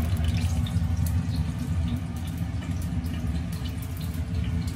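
Oil heating in a wok on a lit gas stove: a steady low rumble with scattered light crackles.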